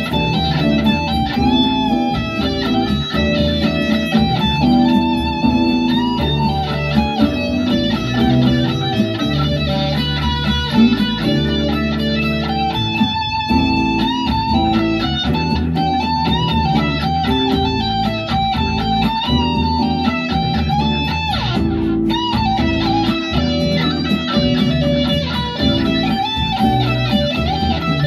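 Les Paul-style electric guitar played through an amplifier: a melodic line with wavering, vibrato-held notes over low sustained notes.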